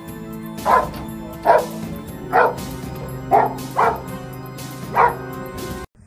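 A police K9 dog barking, six barks spaced about a second apart, over background music with steady held notes. The barking and music cut off suddenly just before the end.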